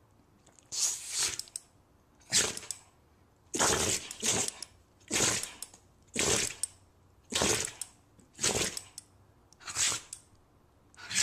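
A dog sneezing over and over, a short sharp sneeze about once a second, a few of them coming in quick pairs.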